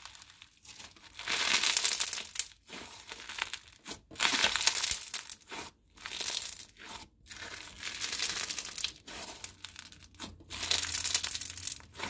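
Crunchy microfloam slime packed with beads being squeezed and pressed by hand, crackling and popping in a series of bursts about a second long with short pauses between them.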